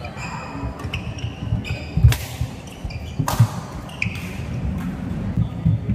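A badminton rally on a wooden court: the racket strikes the shuttlecock with two loud, sharp hits about a second and a half apart, while shoes squeak in short chirps and feet thud on the floor.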